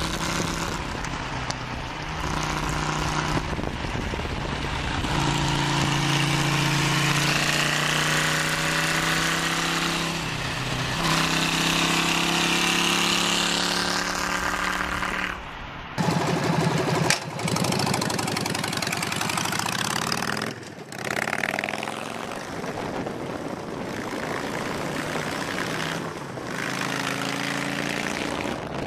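Royal Enfield Musket V-twin 1000 motorcycle engine running on the move, its pitch shifting up and down in steps. About halfway through it cuts abruptly to a Harley-Davidson Sportster 1200 V-twin engine running, louder and rougher.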